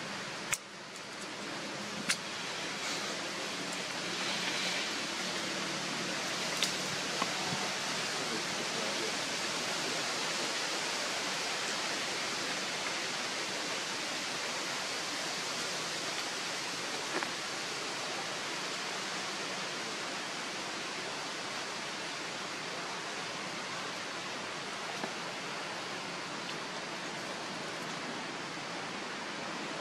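Steady outdoor hiss with a few brief, sharp clicks, the first about half a second and two seconds in and fainter ones later.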